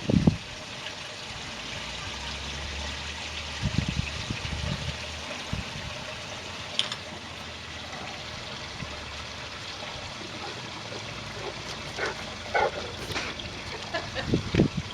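Wind blowing steadily outdoors, with low gusts buffeting the microphone a few times. A few faint short squeaks come near the end.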